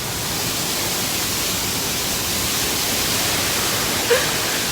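Small waterfall splashing, a steady rush of falling water.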